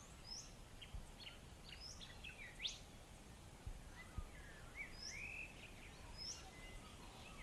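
Faint birdsong: scattered short chirps and quick rising whistles from birds calling on and off.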